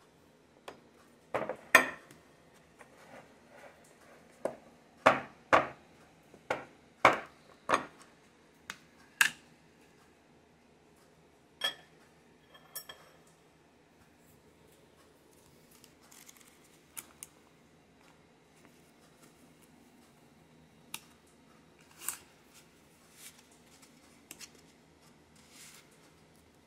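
Metal table knife clinking and tapping against a ceramic plate and a glass dish while cream cheese is spread on a toasted bagel: a quick series of sharp clinks over the first ten seconds, then fewer, softer knocks.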